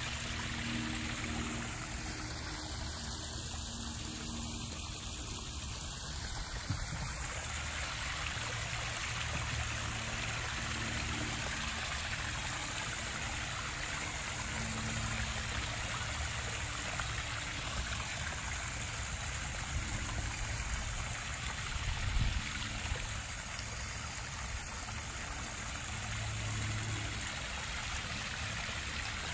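Small garden-pond waterfall splashing steadily into a koi pond.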